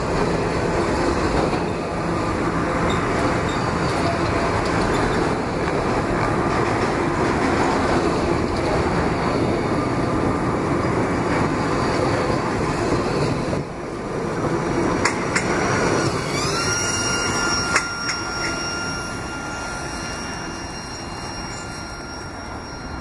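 Norfolk Southern freight train of autorack cars rolling past close by, with a steady clatter and rumble of wheels on rail. About sixteen seconds in, a thin wheel squeal rises in pitch and then holds. Near the end, the noise fades as the last car passes and the train draws away.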